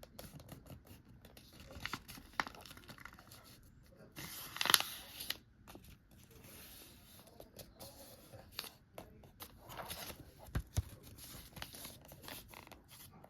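Construction paper being folded and creased by hand: scattered rustling and scraping, with one louder crinkle about four to five seconds in.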